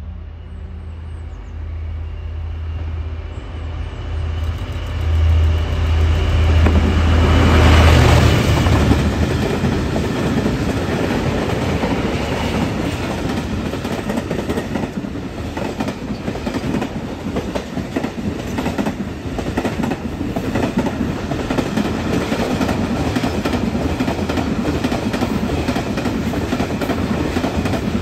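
Diesel freight locomotive approaching and passing with a low engine throb that grows to its loudest about eight seconds in. After it, a long train of heavy wagons and track machines rolls by, its wheels clattering rhythmically over the rail joints.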